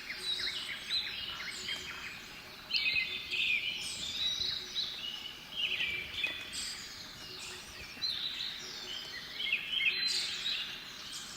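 Small songbirds singing: a bright phrase of quick, stepped, falling notes repeats every three to four seconds, over a steady background hiss.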